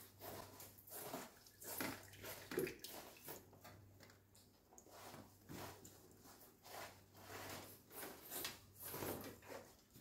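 Faint, irregular rubbing strokes of a wet sponge scrubbing the indoor coil of a split air conditioner, with water trickling and dripping onto plastic sheeting.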